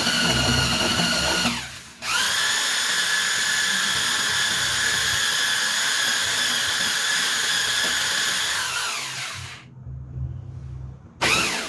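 Electric mixer motor stirring the liquid detergent mixture with a steady whine. It cuts out briefly a second and a half in, spins back up with a rising pitch and runs on, then winds down and stops about ten seconds in. It starts again in short bursts near the end.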